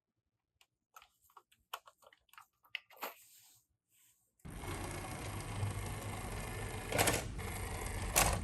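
Toy ambulance minicars clicking and tapping against each other. About halfway a steady whirring rattle sets in suddenly, with a couple of sharper knocks near the end.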